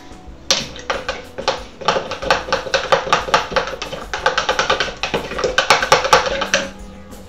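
Metal spoon stirring briskly in a plastic cup, knocking against its sides in a fast run of clicks that starts about half a second in and stops near the end, mixing extra milk into thick avocado-mint pudding to thin it into a smoothie.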